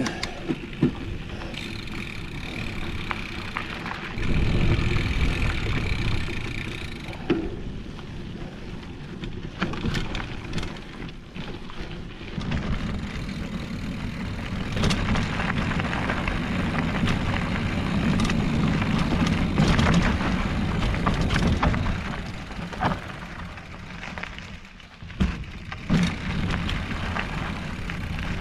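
Trek X-Caliber 8 hardtail mountain bike riding down a dirt trail: the knobby tyres roll over dirt and rocks, with scattered clicks and knocks from the bike over bumps. A low wind rumble on the microphone runs underneath.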